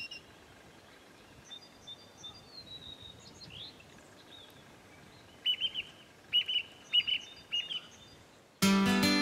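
Song thrush singing: faint whistled phrases at first, then a louder short phrase repeated about four times in quick succession. Guitar music cuts in suddenly near the end.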